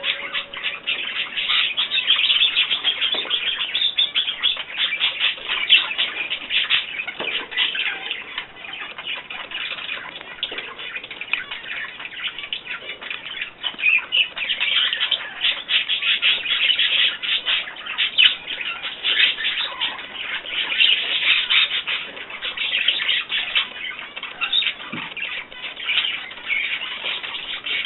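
Pet birds kept indoors chirping and twittering continuously, many short calls running over one another without a break.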